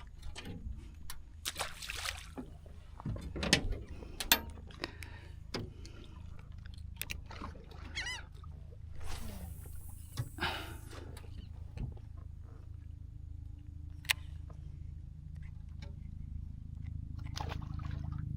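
Boat-side fishing sounds: scattered knocks and clicks against the hull and water sloshing over a steady low rumble, with a short hissing rush about halfway through. A couple of brief high chirping calls come in a little before the middle, and a low steady hum builds near the end.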